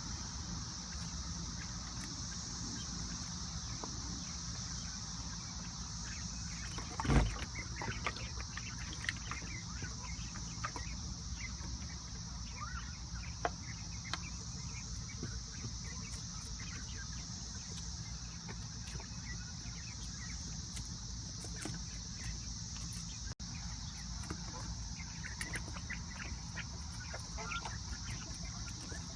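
Outdoor ambience: insects buzzing steadily at a high pitch, with many short scattered bird chirps. A single thud comes about seven seconds in.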